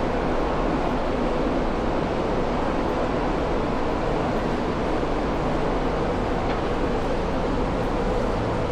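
Steady city street ambience: an even rumble and hum with no distinct events.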